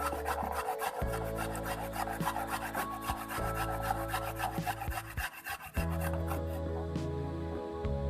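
Turmeric being grated: quick, repeated rasping strokes, with a short pause a little past the middle.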